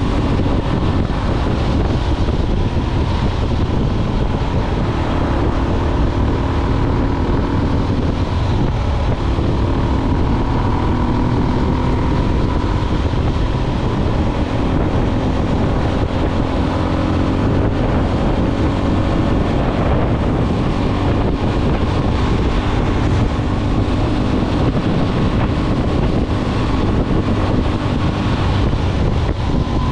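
Motorcycle riding at a steady speed: heavy wind buffeting on the microphone over the even drone of the engine.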